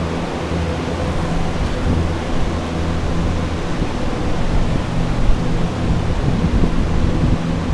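Several carpet air movers and a dehumidifier running together for flood drying: a steady rush of air over a low motor hum.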